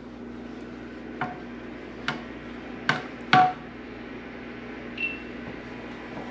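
A stirring utensil clinking and knocking against a saucepan of cheese sauce, a handful of separate strikes, some with a short metallic ring, over a steady low hum.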